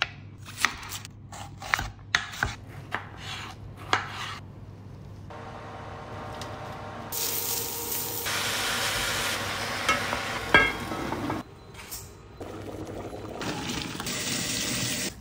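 A knife slicing petai beans on a wooden chopping board, a quick run of sharp knocks. Then chopped onion sizzles in a pot as a wooden spoon stirs it, with a single clink of spoon on pot. Near the end, water pours and splashes over spaghetti in a pot.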